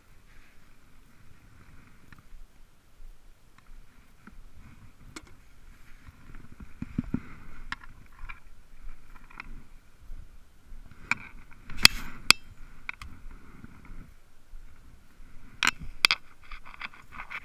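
Close handling noise from a fleece sleeve and gear rubbing and scraping against the microphone, with scattered sharp clicks and knocks; the loudest are two about twelve seconds in and two more near the end.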